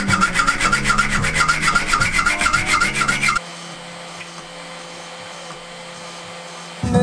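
Sandpaper rubbed by hand over oak slats in quick, even strokes. A little past halfway this stops and gives way to the quieter, steady hum of an electric random orbital sander.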